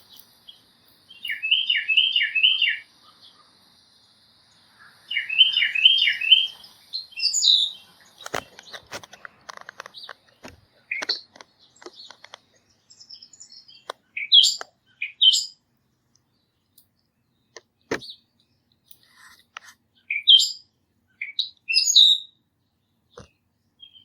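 Songbirds singing and chirping: two short phrases of four repeated slurred whistles, then scattered sharp, rising chirps, with a few sharp clicks mixed in. A steady high buzz sits underneath for the first several seconds.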